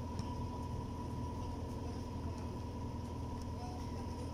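Steady low mechanical hum with a faint, steady high-pitched tone above it; no distinct events stand out.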